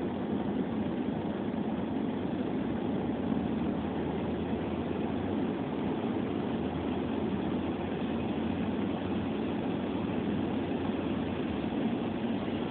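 Steady road and engine noise heard inside a moving car, its tyres running on a wet, snowy road.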